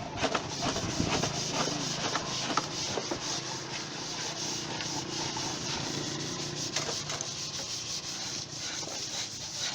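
Wood being sanded: continuous scratchy rubbing, with many short strokes.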